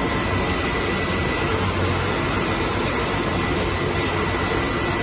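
Overhauled diesel fire-pump engine running steadily under a test run, driving a split-case centrifugal fire pump: a loud, even mechanical din with a constant low hum.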